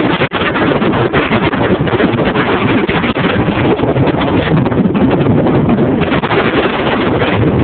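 Strong, gusty wind buffeting the phone's microphone, a loud steady rush over the heavy surf of a rough sea.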